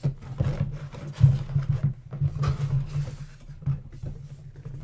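Cardboard shipping box being handled and its flaps opened: rubbing and scraping of cardboard with several sharp knocks, the strongest about one and a quarter seconds in.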